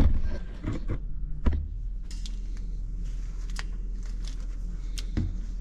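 Crimping pliers closing on solar-cable connector contacts: a few sharp metal clicks spaced out, over a steady low hum.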